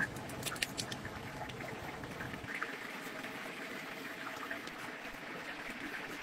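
Hot oil sizzling steadily in a large deep fryer, with a run of sharp crackles and clicks in the first second.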